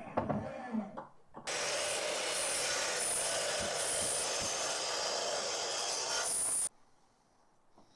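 A few knocks from wood being handled, then a power saw cutting through a maple board: a steady, loud, hissing cut lasting about five seconds that stops abruptly.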